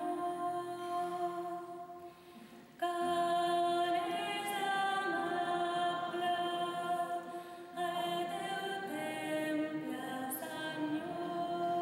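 Unaccompanied liturgical chant: voices singing long, held notes with small glides between them, with a short break about two seconds in.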